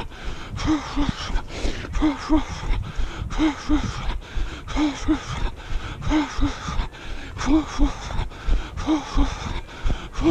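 A runner breathing hard in a steady rhythm: two short breaths with some voice in them, repeating about every second and a half.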